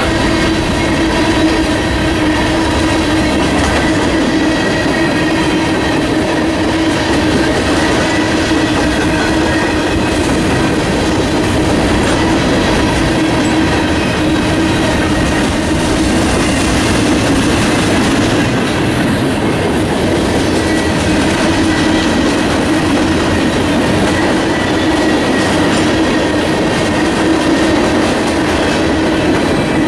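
Norfolk Southern mixed freight train's cars rolling past close by, a continuous loud rumble and clatter of wheels on rail with a steady ringing tone over it.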